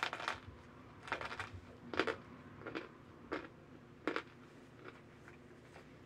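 Hardened cornstarch chunks being bitten and chewed: a series of dry, crisp crunches about one a second, the loudest near the start and around two and four seconds in.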